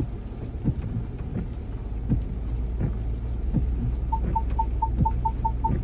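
A Bronco's engine running low and slow in four-low, a steady rumble with dull knocks as it crawls over rough ground. About four seconds in, a vehicle warning beep starts repeating at about four or five beeps a second.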